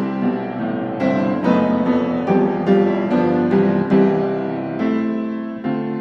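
Background piano music: a gentle tune of single notes and chords, a new note struck about every half second.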